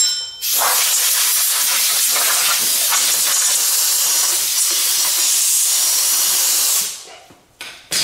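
Compressed-air blow gun blowing off a cleaned drum-brake backing plate: a short blip, then a steady loud hiss for about six seconds, and another brief blast near the end.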